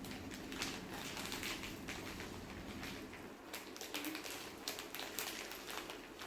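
Plastic snack wrapper being handled and torn open, with irregular crinkling and crackling clicks.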